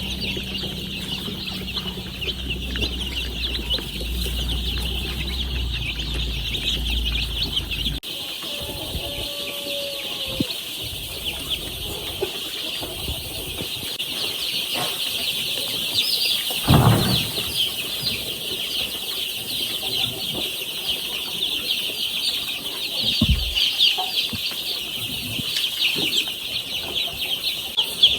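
A crowd of young chicks peeping continuously in a dense chorus of short high chirps. A low hum underneath stops about 8 seconds in, and there is a brief thump about 17 seconds in.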